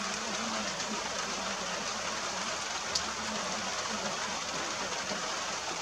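Steady rain falling, an even hiss, with one sharp tick about three seconds in.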